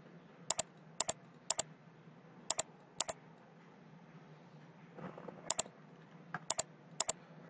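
Computer keys and mouse buttons clicking: about eight sharp double clicks, mostly about half a second apart, five in the first three seconds and three more near the end, over a faint steady low hum.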